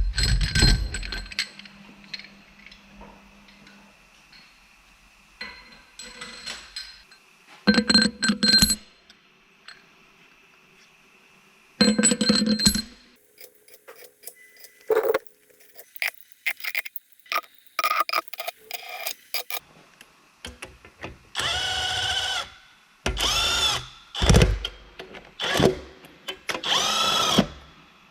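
Metallic clanks and clinks of heavy parts and tools being handled, then, from a little past the middle, several short runs of a power drill spinning up and slowing down.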